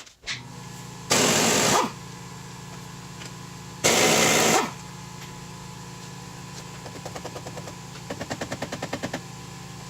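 Pneumatic impact wrench fired in two short bursts, each under a second, on the suspension hardware, followed later by a quicker run of light rapid clicks. A steady low hum runs underneath.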